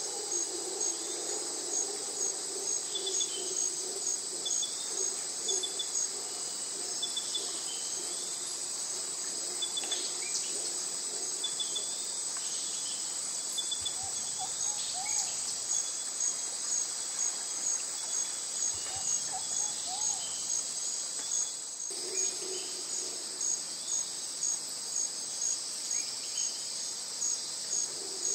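Insect chorus: a steady high-pitched trilling with a regular pulsing chirp about one and a half times a second, and a few faint bird chirps.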